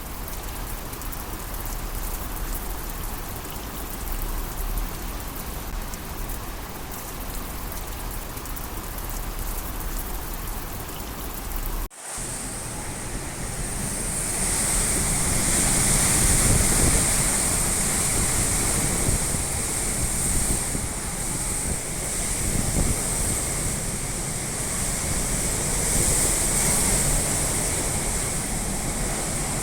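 Typhoon rain and wind: a steady rushing hiss of heavy rain with gusty low rumble. About twelve seconds in it cuts off abruptly and comes back louder, with a sharper high hiss.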